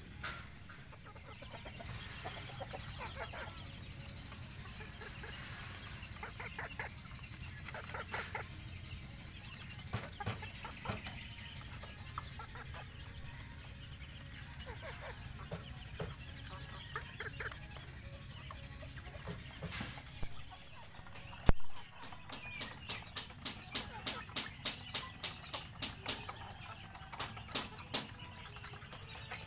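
Backyard chickens clucking now and then. In the second half a single loud knock, then a run of sharp taps about two or three a second as the flock pecks feed from a split-bamboo trough.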